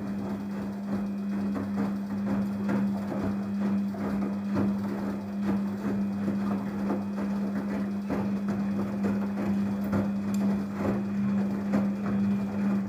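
Daewoo DWD-FT1013 front-loading washing machine tumbling its wash: the drum motor runs with a steady hum while laundry and water fall and knock irregularly inside the drum. The motor starts just before and stops just after, one turn of the wash cycle's drum rotation.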